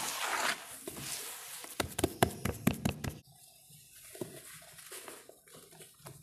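Hands squeezing and crumbling sand-cement mix in a tub. It starts as gritty crunching and rustling, then a quick run of sharp crunches comes about two seconds in. It drops suddenly to soft, scattered crackles as powdery dust falls from the hands.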